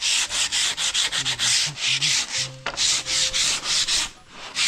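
Sandpaper rubbed by hand along white trim strips in quick back-and-forth strokes, about five a second, with brief pauses about two and a half seconds in and near the end.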